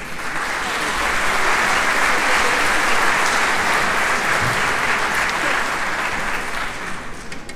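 Concert audience applauding, starting suddenly and dying away near the end.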